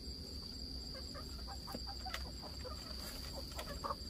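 Chickens clucking: a string of short clucks, several a second, with a few louder ones near the end.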